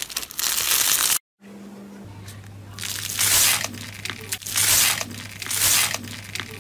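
Foam-bead slime (floam) squeezed and pressed by hand, crunching and crinkling. A brief break about a second in; then three loud crunching presses of beaded slime come over a low steady hum.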